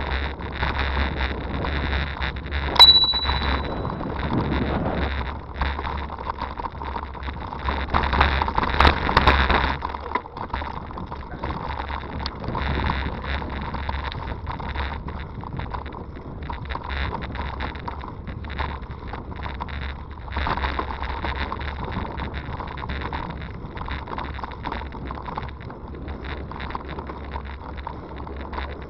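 Hybrid bicycle ridden along a dirt and gravel towpath: tyres rolling over the rough surface and the bike rattling over bumps, with wind on the microphone. A brief high ring with a click comes about three seconds in, and the ride is rougher and louder for a couple of seconds around a third of the way through.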